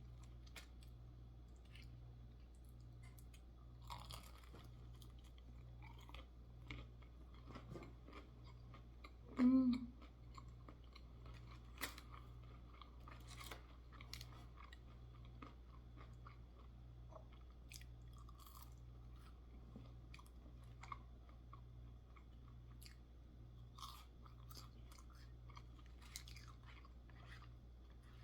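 Close-up chewing and biting of crispy fried chicken tenders and fries, many short crunches scattered through, over a steady low hum. One louder short sound comes about a third of the way in.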